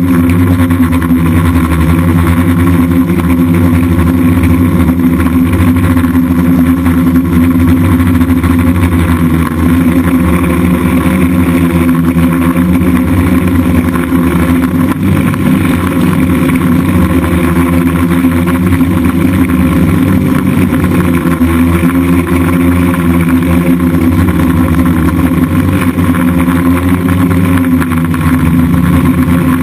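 DJI F550 hexacopter's six electric motors and propellers buzzing steadily in flight, the pitch wavering slightly now and then in the second half as the throttle shifts.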